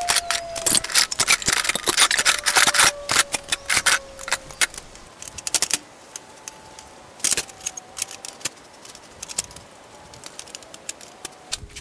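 Used steel horseshoes clinking and scraping as they are picked up, shuffled and set down on a steel welding table. The clatter is dense over the first few seconds, then thins to scattered clinks.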